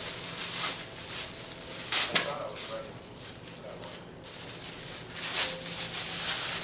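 Clear plastic bag crinkling and rustling as it is handled and pulled off a lamp's power cord, in irregular bursts that are loudest about two seconds in and again about five and a half seconds in.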